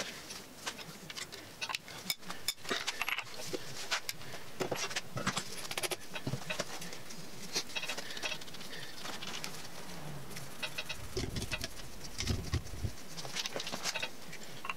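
Scattered metallic clicks and clinks of a wrench, rod caps and connecting-rod parts being handled on the crankshaft of a stripped 5.3L V8 engine block. A low rumble comes in about eleven seconds in and lasts around two seconds.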